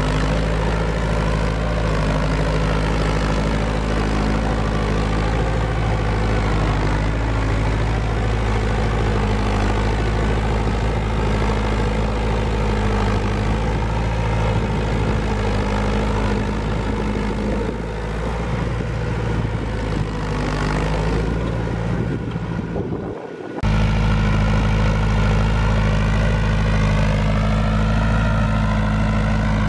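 Farm tractor engine running steadily while pulling a plow through sod. A brief sudden drop about three-quarters of the way through, after which the same steady running resumes.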